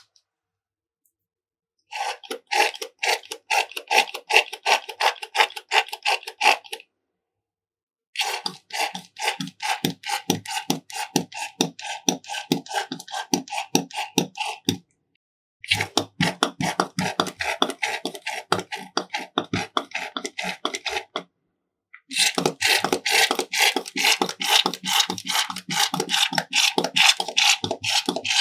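Slime being squished and worked, a rapid run of sticky clicks and pops several times a second, in four stretches broken by brief silent gaps.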